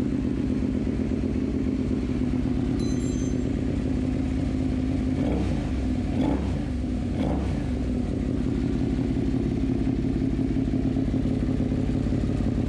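Suzuki SV650 race bike's 645 cc V-twin engine idling steadily after being reassembled, with three short throttle blips about five to seven seconds in.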